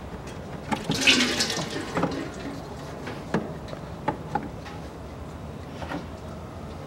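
Windshield washer fluid gushing out of the reservoir as the old washer pump is yanked from its rubber grommet, loudest about a second in. A few small plastic clicks and knocks follow as the pumps are handled.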